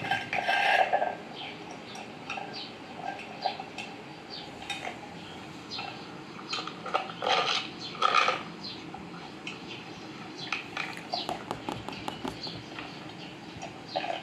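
Cats eating dry kibble from a bowl, heard through a TV's speakers: scattered crunching clicks and clinks of food against the bowl, loudest about a second in and again around seven to eight seconds in.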